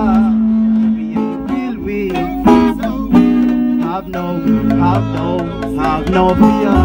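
Live band music led by guitar, with held notes and a low bass line underneath.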